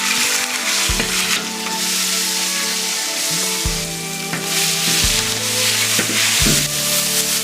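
Food sizzling as it fries in a hot pan, with background music's sustained notes and bass playing over it.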